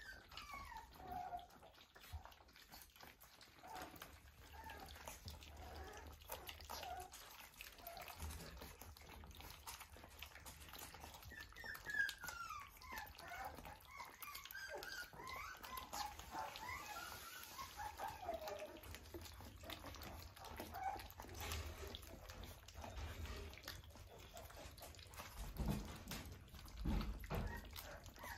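A litter of Australian Shepherd puppies eating their first meal from a stainless steel feeding dish: wet lapping and smacking throughout, with high squeaky whimpers, most of them around the middle, and a few dull bumps near the end.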